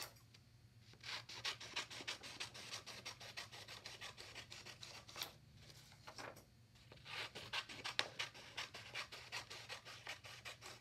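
Scissors cutting green construction paper into strips: a dense, crisp rasp of the blades working through the paper in two long cuts, with a pause of about a second and a half midway.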